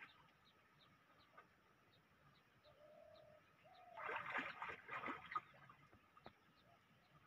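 Quiet outdoor scene with a dove cooing in two short low, steady notes about three seconds in, faint high chirps ticking at a regular pace, and a brief louder scratchy burst of noise about four seconds in.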